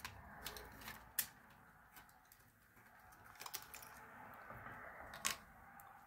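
Faint, scattered clicks and taps of small desk items being handled, as a metal craft knife is picked up; the sharpest click comes about a second in and another near the end.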